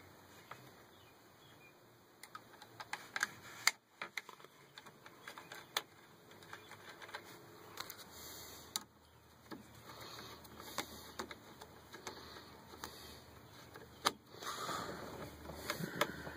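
Light, irregular clicks and taps of small metal and plastic parts being handled and fitted at the top of a GM steering column.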